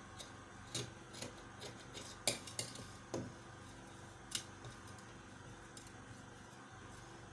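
Scissors snipping through lace: irregular short snips and clicks, the sharpest a little past two seconds and just over four seconds in.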